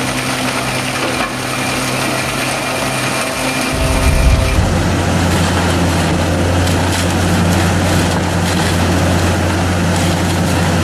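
Heavy forestry machinery running loud and steady with an engine hum and a dense mechanical rush; about four seconds in, the engine note drops to a lower, heavier hum.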